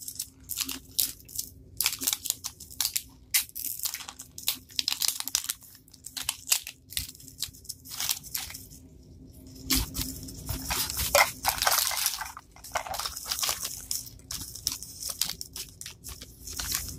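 Plastic wrapping crinkling and crackling in short, irregular bursts as it is peeled and torn by hand off a Mini Brands capsule ball, with small clicks from the plastic ball being handled.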